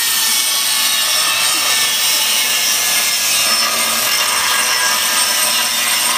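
Handheld angle grinder cutting into the end of a steel tractor silencer pipe: a steady high-pitched whine with harsh grinding noise that does not let up.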